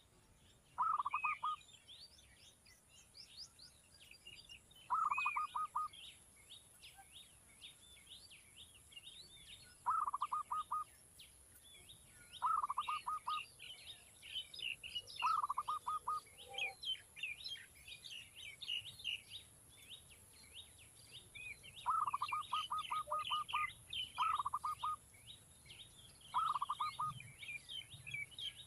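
Bird calls: a loud, short rattling call of rapid pulses, repeated about nine times at uneven gaps, over continuous high-pitched chirping of other birds.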